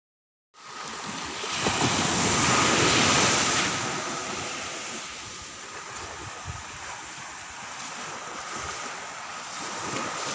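Small waves breaking and washing up a sandy beach. The wash swells about two seconds in and eases off after about four seconds.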